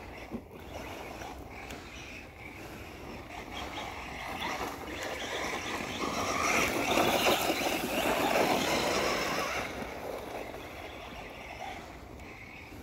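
Radio-controlled basher car driving over a gravel and dirt trail: its motor whines and the tyres crunch on the loose surface, growing louder about six seconds in as the car comes closer and fading again after about ten seconds.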